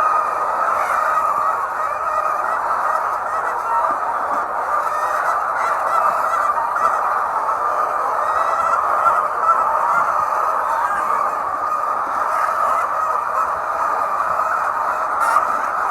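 A large flock of laying hens in a poultry house, many birds clucking and calling at once into a steady, unbroken din.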